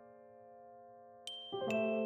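Background music: a soft keyboard chord ringing and fading away, then a new chord struck about one and a half seconds in, with a bright chime-like note just before it.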